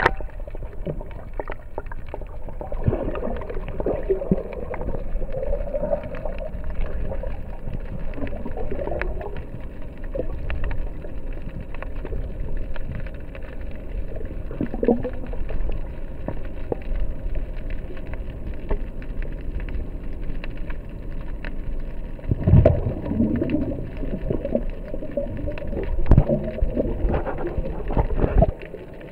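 Muffled underwater sound picked up by a camera below the surface: swirling water and bubbles with many small clicks and crackles, all dull and low, with two louder surges of water noise near the end.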